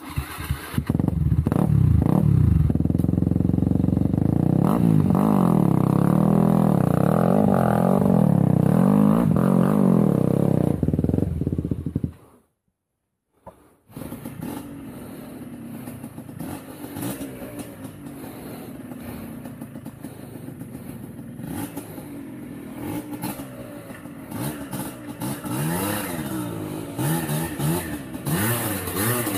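Motorcycle engine revving up and down under load on a steep trail, loud with a wavering pitch for about twelve seconds. It cuts out briefly, then comes back quieter, rising and falling unevenly.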